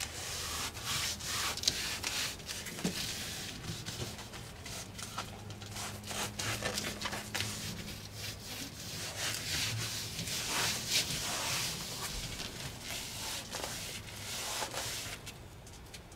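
Irregular rubbing and scraping strokes of hands working a sheet of EZ-Cool foil-faced foam insulation, smoothing and pressing it into place.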